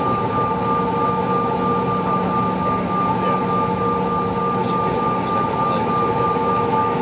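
Cabin noise of a Mitsubishi CRJ-900 regional jet taxiing. The rear-mounted GE CF34 turbofans at idle give a steady whine of several held tones over an even rumble.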